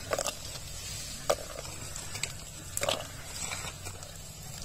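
Whole crabs tipped from a steel plate into a clay pot of hot oil: a few separate knocks as they drop in and knock against the pot, the loudest about three seconds in, over a low steady rumble.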